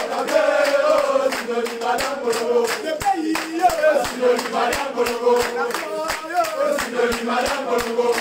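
A group of men singing a celebration chant together, with steady rhythmic hand clapping keeping the beat.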